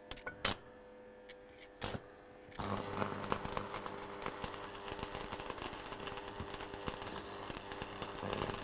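A few light metal taps, then from about two and a half seconds in the steady crackle of stick (electrode) arc welding with the welder's electrical hum, cutting off right at the end. The weld is being run around a broken steel pin to fuse it in.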